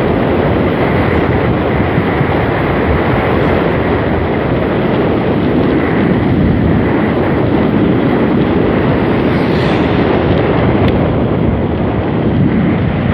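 Loud, steady wind noise buffeting the microphone, with no clear engine tone or voice.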